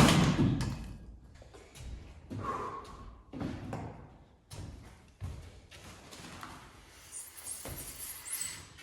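A loud bang or slam right at the start, ringing out for about a second, then several lighter knocks and clunks spread through the next few seconds.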